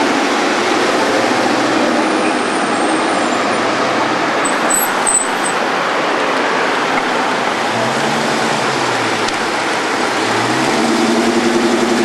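Street traffic noise with a Dodge Charger's engine pulling away: its pitch rises and falls between about eight and ten seconds in, and it grows louder near the end as the car passes close.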